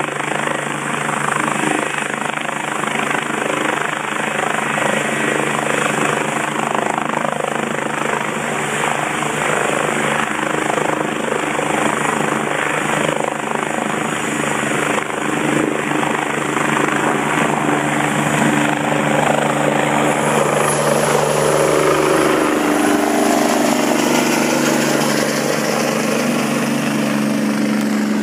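Army helicopter lifting off and departing: a steady loud turbine and rotor roar, with its tones shifting in pitch over the last several seconds as it flies off.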